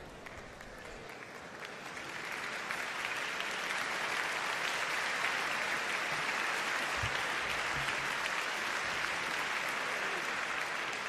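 Concert-hall audience applauding, swelling to full strength about two seconds in and tapering off near the end.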